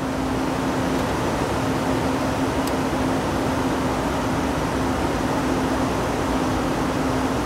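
Aircraft cockpit noise in flight: a steady rush of engine and airflow with an unchanging low hum running through it.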